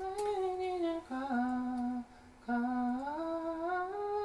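A single voice humming a slow melody without words: held notes, a lower note about a second in, a brief break near the middle, then a glide back up to a held note.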